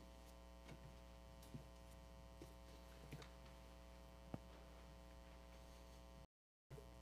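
Near silence: a faint steady electrical hum with a few scattered faint clicks and knocks. The sound cuts out completely for a moment near the end.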